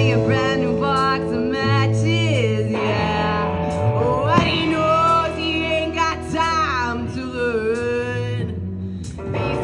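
Live garage R&B band playing electric guitars, bass and drums, with a lead melody that slides up and down in pitch over held bass notes.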